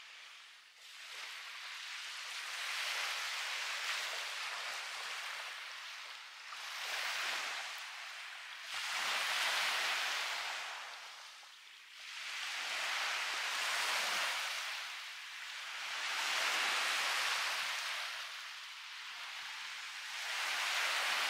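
Small waves breaking and washing up a sandy beach, the hiss swelling and dying away every three to four seconds.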